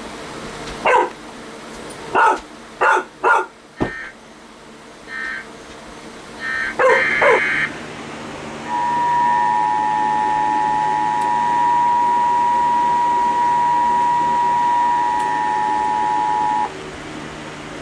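Emergency Alert System attention signal: two steady tones sounded together for about eight seconds, then cutting off suddenly, announcing the next severe thunderstorm warning. Before it, in the first half, come a few short, sharp sounds.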